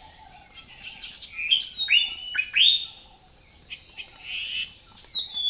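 Songbirds chirping and calling: a run of short, clear notes that swoop in pitch, loudest between about one and a half and three seconds in, with scattered calls after.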